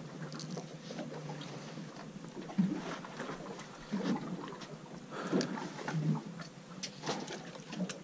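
Scattered small clicks and soft knocks from hands handling fishing tackle and bait on a boat, over a faint steady low hum.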